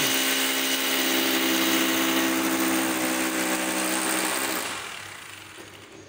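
Electric angle grinder grinding on a steel frame, a steady whine with heavy hiss that fades out near the end.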